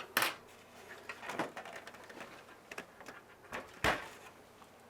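Handling noises from a CPU cooler's backplate bracket being picked up and positioned: a few separate clicks and knocks, the loudest near the end.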